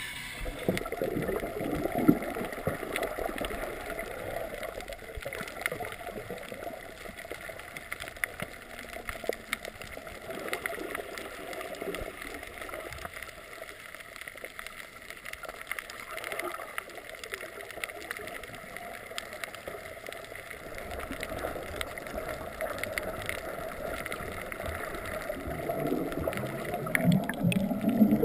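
Muffled water sloshing and gurgling around a GoPro in its waterproof housing while snorkeling underwater, uneven and a little louder near the end.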